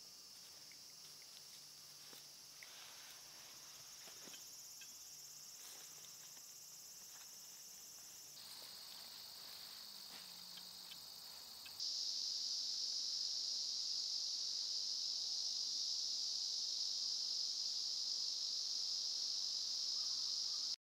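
Summer forest insect chorus, a steady high-pitched drone that gets much louder about twelve seconds in, with a few faint light ticks in the quieter first part. It cuts off suddenly near the end.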